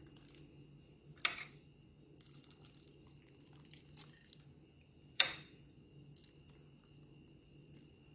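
Quiet room tone with a faint steady low hum, broken by two short sharp taps, about a second in and about five seconds in, the second louder.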